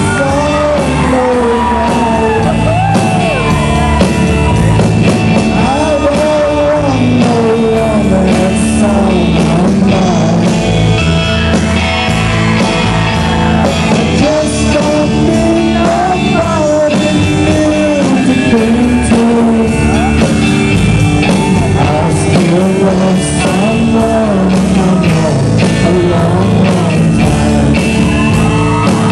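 Live band performance: a man singing a country song over electric guitar and drums.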